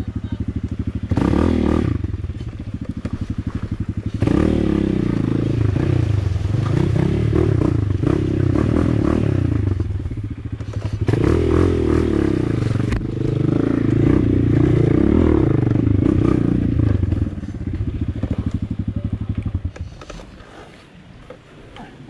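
Motorcycle engine running under changing throttle, its pitch rising and falling again and again as it is ridden. It dies down near the end.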